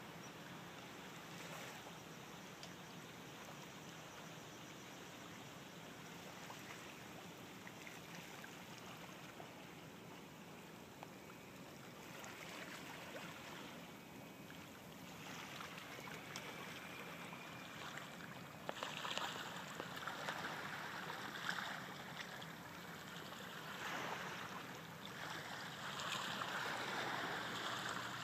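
Swamp water flowing and churning at a sinkhole, a steady rush that gets louder and rougher about two-thirds of the way in.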